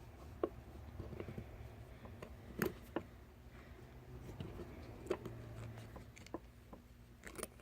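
Quiet clicks and small scraping handling noises of a steel ring clip being worked around by hand into its groove in a Warn lockout hub, with about six sharp ticks spread irregularly through.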